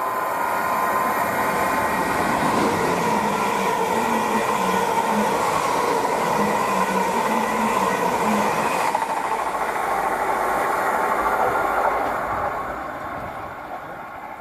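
Greater Anglia Class 745 Stadler FLIRT electric multiple unit running through the station past the platform: a steady rush of wheels on rail with an electric whine, a run of short wheel beats over the rail in the middle, fading away about twelve seconds in.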